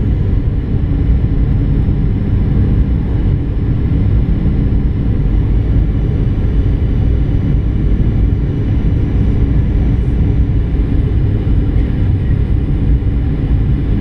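Steady cabin noise inside a Boeing 737-800 on approach: a low rumble of airflow and its CFM56-7B engines, with a faint steady hum above it.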